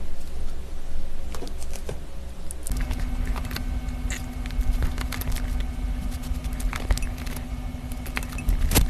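Wooden chopsticks clicking and scraping in a glass bowl of vegetables, and paper cups being handled as seasoning powder is tipped over the salad: a run of small sharp clicks and taps. A steady low hum comes in about a third of the way through.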